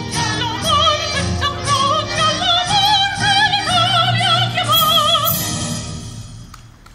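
Operatic singing with a wide vibrato over instrumental accompaniment; the last held notes end about five and a half seconds in and the music fades away.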